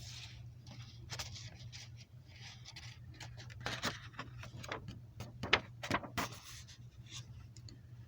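A series of small clicks and knocks with brief rustling, like objects being handled, loudest about five and a half seconds in, over a steady low hum.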